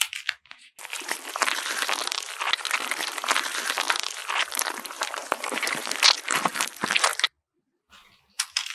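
Paper being crumpled and crinkled: a dense crackling crunch that cuts off suddenly about seven seconds in.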